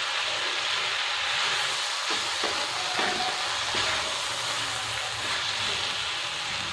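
Stir-fried vegetables and sauce sizzling steadily in a non-stick pan while a silicone spatula stirs them, with a few soft strokes of the spatula in the middle.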